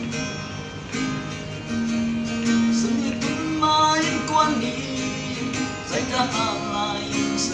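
Gospel song with acoustic guitar strumming and a singing voice coming in over it about halfway through.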